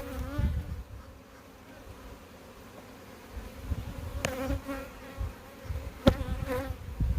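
Honeybees buzzing around an open hive, a steady hum with individual bees swelling louder as they fly close to the microphone. Two sharp knocks sound, about four and six seconds in.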